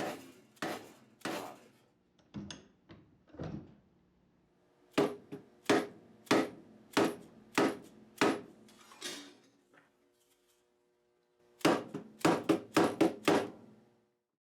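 Fret hammer tapping a new fret down into its slot in a guitar fingerboard. The sharp wooden taps come in bursts, and the last burst is a quick run of about six. A faint ringing from the guitar body follows the strikes.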